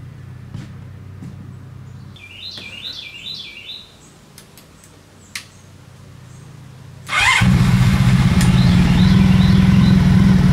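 A bird chirps a quick run of calls, then about seven seconds in the buggy's Honda VF1000 V4 motorcycle engine starts abruptly and keeps running loudly and steadily.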